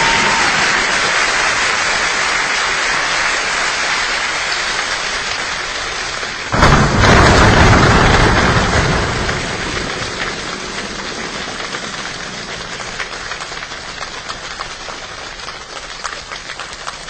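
A rainstorm sound: a steady rushing hiss that swells suddenly to its loudest about six and a half seconds in, then slowly dies away into a thinning patter of separate drops.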